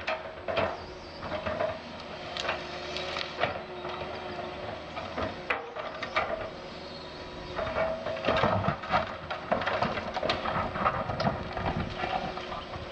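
Doosan DX180 LC excavator's diesel engine and hydraulics running steadily, with many sharp knocks and cracks as the bucket works through soil, roots and wood. The knocks come thicker in the second half.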